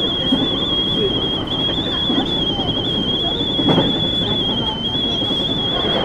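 A steady high-pitched whine held at one pitch with a slight waver, over the low running rumble of an electric commuter train and a few faint voices.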